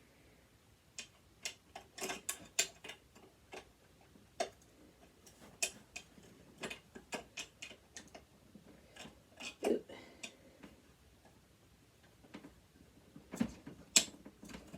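Irregular small metal clicks and taps as flathead screwdrivers are picked out and tried in the slot of a screw on a sewing machine.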